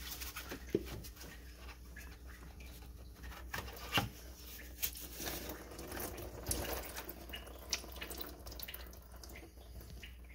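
Engine coolant dripping and trickling from the disconnected lower radiator hose of a Mercedes W210 E430, with scattered sharp ticks.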